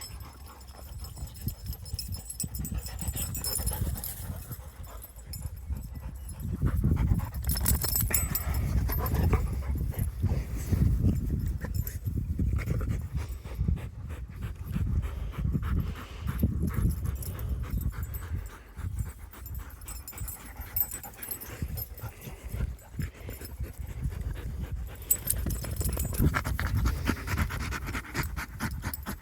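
Labrador Retriever panting, over a steady low rumble.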